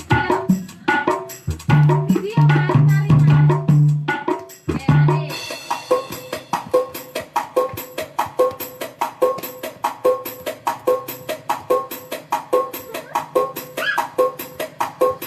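Yamaha electronic keyboard playing music from its built-in sounds. About five seconds in, it changes from busy melodic notes over a heavy low bass to a steady, even drum-and-percussion rhythm with a repeating pitched tick on every beat.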